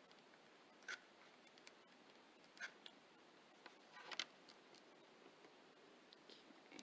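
Near silence with a few faint clicks and light taps as a painted pine cone flower is handled and set onto a canvas on the tabletop.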